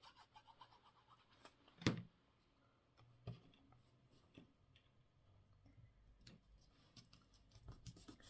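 Quiet handling of paper and card being pressed down by hand, with scattered small ticks, a sharp tap about two seconds in and a softer one about a second later.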